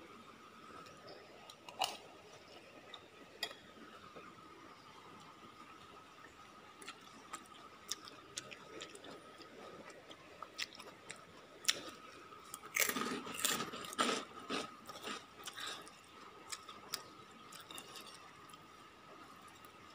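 Close-miked chewing of a mouthful of rice and vegetables, loudest and densest a little past halfway through, with scattered sharp clicks of a metal spoon against a ceramic plate.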